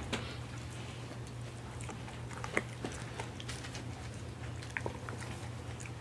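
A Siberian husky gnawing a Purina Busy Chewnola chew treat: irregular crunches and clicks of teeth on the hard chew, the sharpest about two and a half seconds in, over a steady low hum.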